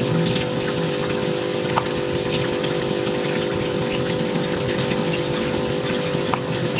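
Steady hum over an even rushing noise, with a few faint clicks.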